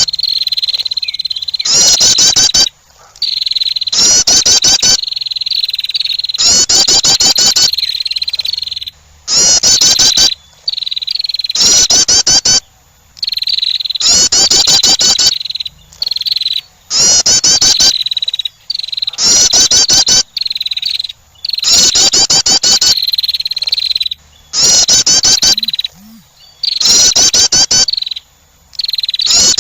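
Female wren's call played as a lure: a loud, harsh, rapidly pulsed trill about a second long, repeated about every two and a half seconds. Between the trills there is a high, steady thin tone with small chirps.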